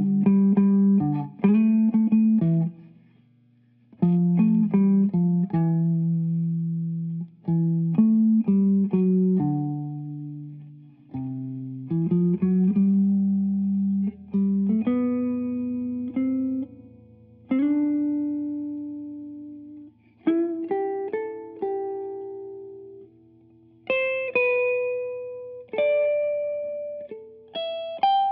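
Unaccompanied guitar played slowly, plucked chords and single melody notes each left to ring and die away, with a brief pause about four seconds in.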